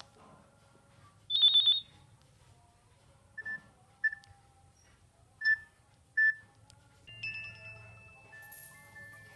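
Nokia 6600 ringtones playing from the phone's speaker. About a second and a half in comes a short, loud burst of rapid high beeps. A few sparse single notes follow, and from about seven seconds in a new chiming tone with held notes begins.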